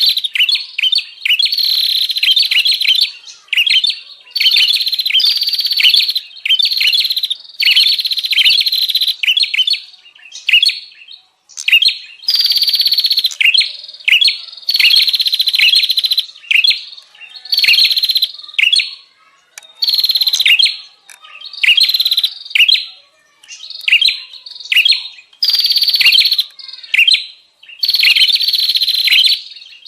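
Prenjak (prinia) birds chattering loudly and excitedly, in rapid, buzzy bursts of one to two seconds with short breaks between them: the agitated 'ribut' calling used as a lure to draw in wild prenjak.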